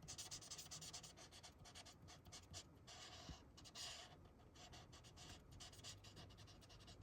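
Faint, scratchy strokes of an alcohol marker's nib being drawn back and forth across paper while colouring in a shape.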